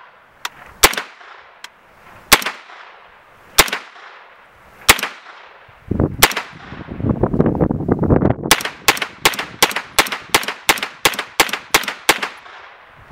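Extar EP9 9mm carbine firing: single shots about a second and a half apart, then a fast string of about a dozen shots at roughly three a second.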